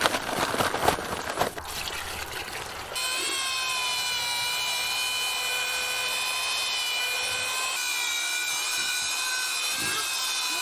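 Dry tile mortar powder rushing and hissing as it is poured from the bag into a plastic bucket. About three seconds in, a corded drill with a paddle mixer starts and runs at a steady whine, mixing the mortar.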